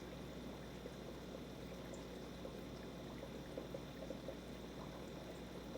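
Faint, steady trickle and bubble of aquarium water running through the tank's equipment, over a low hum, with a few small ticks.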